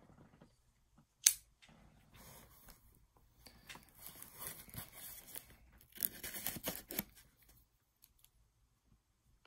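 Plastic shrink wrap on a cardboard trading-card set box crinkling and tearing as it is handled and opened. A sharp click about a second in is the loudest sound, and the rustling is heaviest near the two-thirds mark before it goes quiet.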